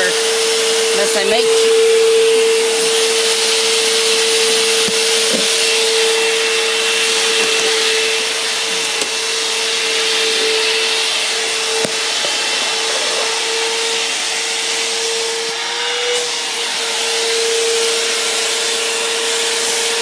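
Bissell CleanView Helix bagless upright vacuum cleaner running on carpet, a steady motor whine over the rush of air, its pitch wavering briefly about three-quarters of the way through.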